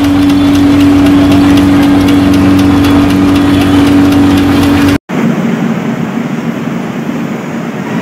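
Loud steady mechanical hum with crackling over it. It cuts off abruptly about five seconds in, giving way to a quieter, hissy background.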